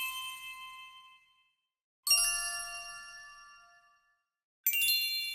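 A bell-like chime struck three times, about two and a half seconds apart, at a different pitch each time. Each high, clear ring fades away over a second or two.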